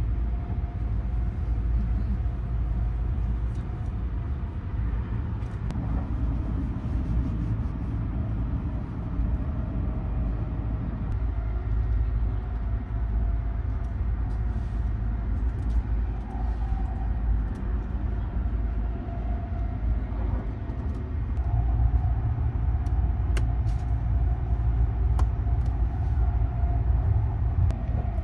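Steady low rumble of the Sunrise Express sleeper train heard from inside the carriage. About two-thirds of the way through, a faint steady hum joins in and the rumble grows a little louder.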